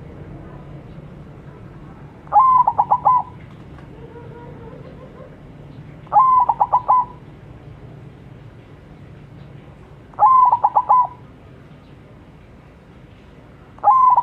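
White zebra dove (perkutut) singing its staccato cooing song: four short phrases of quick coos, one about every four seconds.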